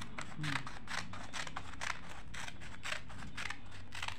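Scissors cutting out a paper sewing pattern: a steady run of short snips, about three a second.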